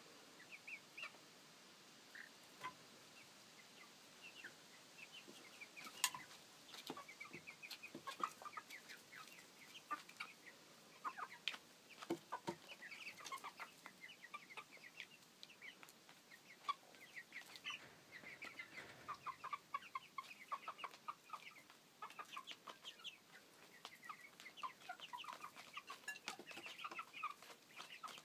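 A mixed flock of seven-week-old chicks (Copper Marans, Welsummer, Black Ameraucana and Barred Plymouth Rock) peeping and clucking: many short overlapping calls, sparse at first and a busy, continuous chatter from about six seconds in.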